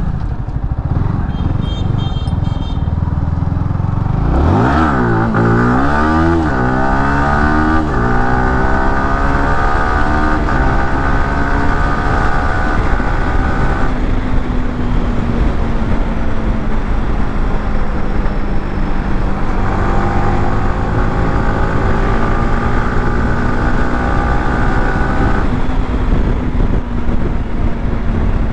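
Yamaha R15M's single-cylinder engine running. About four seconds in its revs jump sharply. Its pitch then climbs slowly for about ten seconds, holds steady, and climbs again from about twenty seconds in.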